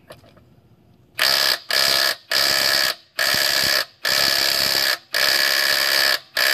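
Bosch IWBH182 18-volt brushless cordless impact wrench hammering on a truck lug nut torqued to 128 foot-pounds, in about six loud trigger bursts with short pauses, starting about a second in. It takes a while to break the nut loose: the tool is short on power for the job.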